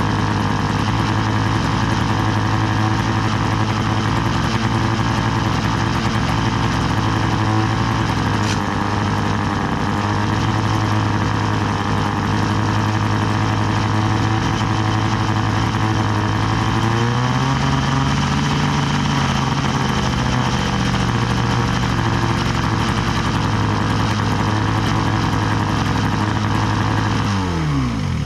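Outboard motor running steadily at a fast idle. A little past halfway its pitch rises for a few seconds and settles back, and at the very end the engine is shut off and spins down.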